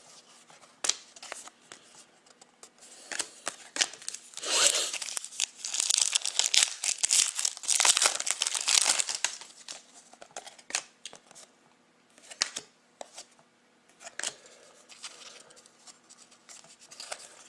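A wrapper on a Panini Rookie Anthology hockey card pack being torn open and crinkled, in irregular rustling and tearing with scattered small clicks, loudest about four to nine seconds in.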